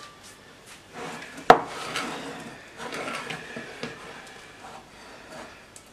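A sharp knock about one and a half seconds in, then soft rubbing and scraping as rested bread dough is handled in a glass bowl on the counter.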